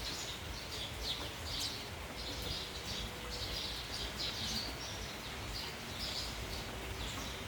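A flock of sparrows chirping and twittering busily, many short chirps overlapping, over a steady hiss of rain and wind.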